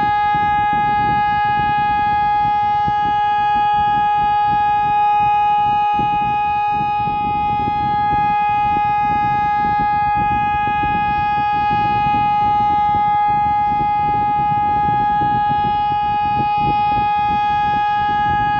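SES 600 civil defence siren sounding one steady, unchanging tone, held without rising or falling, over a rough low noise.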